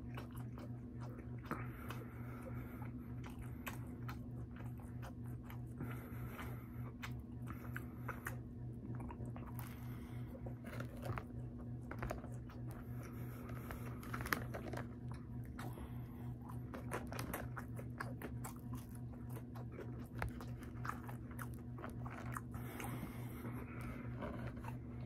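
Close-up mouth sounds of a person biting and chewing a sandwich and fries, with irregular wet clicks and crunches, over a steady low hum.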